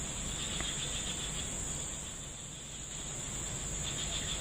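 A steady, high-pitched drone of insects, such as crickets or cicadas, with a fainter pulsing trill a little lower in pitch.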